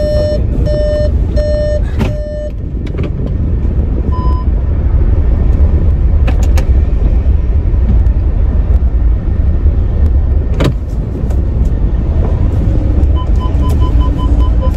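Car heard from inside the cabin rolling slowly forward, with a steady low engine and road rumble. Electronic beeps sound over it: a few evenly spaced beeps at the start, a single beep a few seconds in, and quick repeated beeps near the end. A sharp knock comes about two-thirds of the way through.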